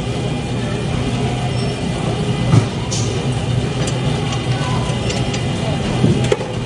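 Coinstar coin-counting kiosk running its coin-sorting mechanism, a steady mechanical whir with scattered clicks, as the machine catches up on counting the last of the deposited coins.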